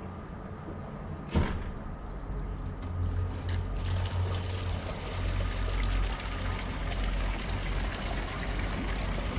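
A boat's engine running with a low steady rumble while water rushes and splashes along the hull, growing louder a few seconds in; a single sharp knock about a second and a half in.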